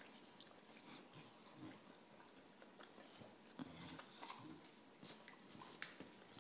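Faint licking and mouth clicks of a Boxer dog grooming another dog, in scattered short bursts.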